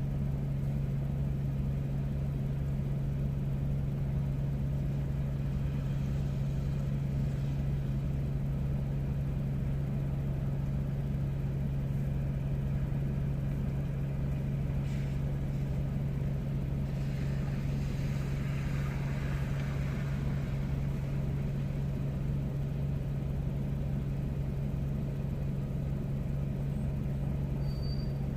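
A steady low motor hum at one constant pitch, with no change in level throughout.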